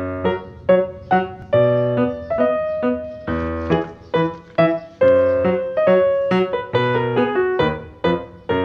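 Background piano music: a light tune of single struck notes, about three a second, each ringing and fading before the next.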